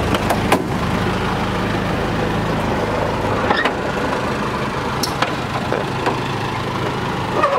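Open-top jeep's engine idling with a steady low hum that grows weaker about three seconds in. Several short metal knocks and clanks come from people climbing down out of the jeep's back.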